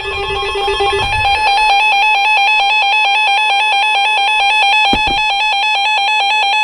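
Weather radio receiver sounding its alert alarm for an incoming severe thunderstorm warning: a loud electronic tone warbling rapidly and evenly between two pitches.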